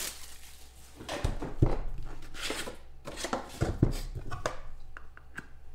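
Handling noises on a tabletop: scattered knocks, taps and rustles, with two heavier thumps about a second and a half in and near four seconds in, as card boxes and packaging are moved about.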